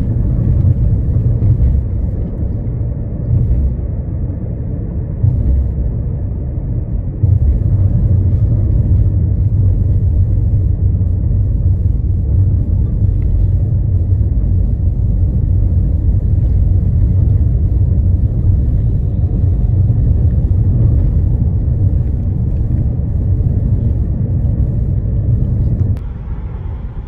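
Steady low rumble of tyre and engine noise inside a car cruising on a motorway. It grows louder about seven seconds in and drops off near the end.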